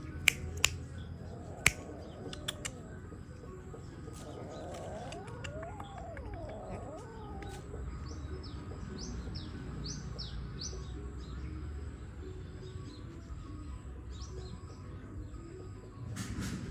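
An animal's short high chirps, about a dozen in quick succession in the second half, after a lower wavering call in the middle and a few sharp clicks near the start.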